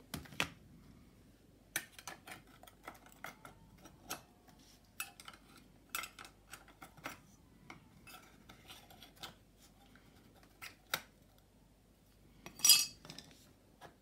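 Scattered light metal clicks and clinks as a thin metal tool and fingers work the metal brake plate loose from a stroller's wheel hub, with a louder scrape near the end.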